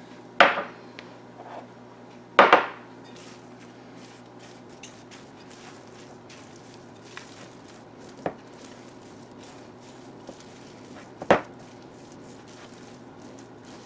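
Sourdough biscuit dough being stirred in a mixing bowl with a silicone spatula as the baking soda, baking powder and salt are worked in. There are faint scrapes and four sharp knocks of kitchenware against the bowl and counter, the loudest two in the first three seconds.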